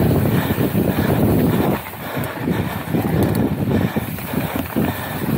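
Wind buffeting the microphone over the rolling noise of a mountain bike's tyres on loose, sandy dirt: a steady rushing noise that eases a little about two seconds in.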